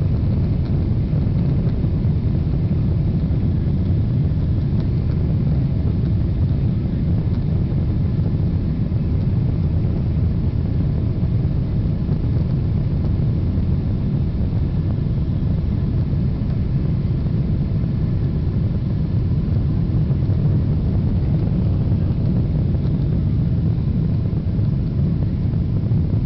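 Boeing 777's twin turbofan engines at takeoff thrust, heard from inside the cabin: a loud, steady, low rumble through the takeoff roll and climb-out.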